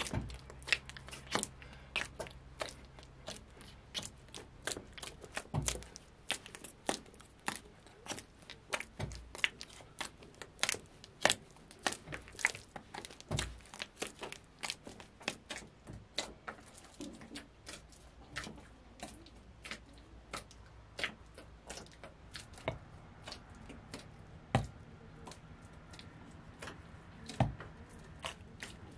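Hands kneading soft, wet dough in a plastic basin: a steady, irregular run of squelching, slapping squishes, about two or three a second, with a few duller thumps among them.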